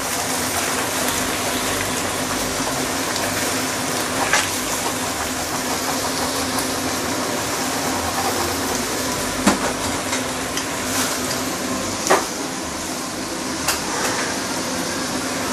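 Eggs sizzling steadily in hot oil in a stainless steel wok as they are broken up and scrambled with a wooden spatula, with a few sharp clicks of the spatula against the pan.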